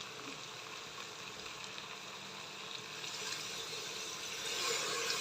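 A bowl of water poured into a hot pressure cooker of fried mutton, hissing and bubbling as it hits the pan, growing louder over the last two seconds.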